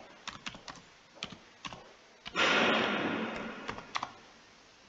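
Typing on a computer keyboard: a string of separate key clicks, with a louder hiss of noise lasting nearly two seconds midway.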